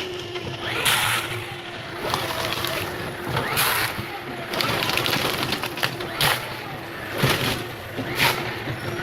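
Forestry harvester's engine running with a steady hum, with about five short, loud bursts of cracking and rustling as the head handles and strips a trunk.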